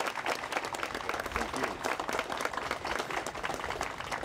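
An audience applauding: many hands clapping together without a break.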